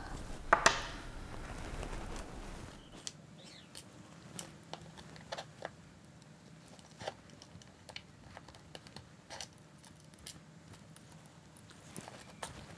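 Hands working on an aluminium robot weapon block and its pulleys and belt: faint, scattered small clicks and taps of metal parts being handled.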